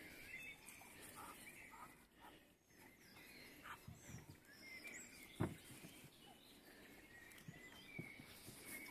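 Faint, high animal squeaks and chirps over quiet outdoor ambience, with a single sharp knock about five and a half seconds in.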